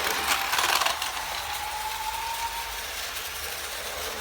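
Plastic toy train-station set's mechanism clicking and ratcheting in a quick run of clicks about half a second in, followed by a faint, slowly rising whine.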